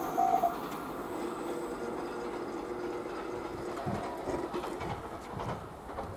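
A train running past a railway level crossing and fading away, with the crossing's warning bell sounding its last strokes, about two a second, before it stops about half a second in.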